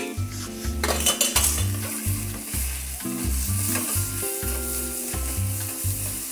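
Minced beef and pork sizzling as it fries in oil with chopped onions in a stainless steel sauté pan, stirred and broken up with a silicone spatula.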